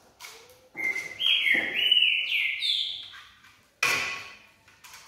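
High squeaky chirping tones, rising and wavering in steps for about two seconds, then a single sharp metal clank with a short ring, as of steel bicycle fenders knocking together.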